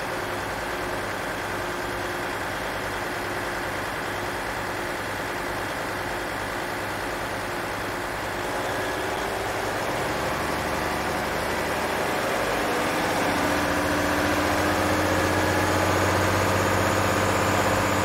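Engine running steadily, its pitch shifting about ten seconds in and rising over the next few seconds as it grows a little louder toward the end.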